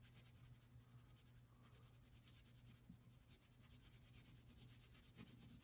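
Faint scratching of a crayon colouring in on paper, over a low steady hum.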